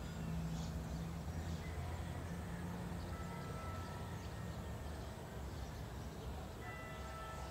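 Steady low rumble of outdoor background noise, with a few faint, thin high notes in the middle and near the end.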